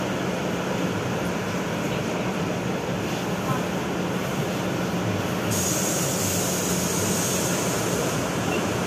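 Cabin noise inside a BKM 32100D trolleybus standing still: a steady low electrical hum. About halfway through, a steady high hiss abruptly sets in and carries on.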